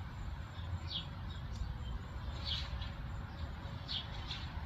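A small bird calling outdoors: three short, high chirps, each sliding down in pitch, about a second and a half apart, over a low background rumble.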